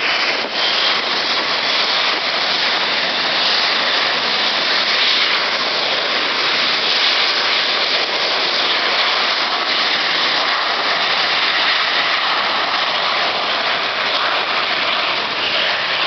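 Boeing 727 freighter's three JT8D turbofan engines running hard as the jet departs, a loud, steady jet noise.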